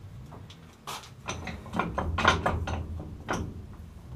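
Irregular metal clunks and rasping scrapes as a hacksaw caught in a steel electric-motor stator is worked about in a vise, a dense run of them in the middle with the loudest knock about two seconds in.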